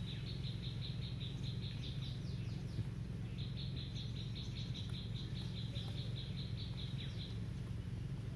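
An animal's call in an open field: rapid, evenly spaced high chirps, about seven a second, in two long runs with a short break between them. A steady low rumble runs underneath.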